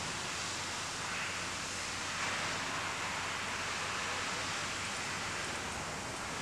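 Steady background noise: an even hiss with a faint low hum underneath, unchanging throughout.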